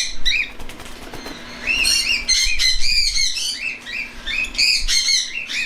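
Several young cockatiels calling in quick, repeated short chirping calls, with wing flapping as they fly around the room.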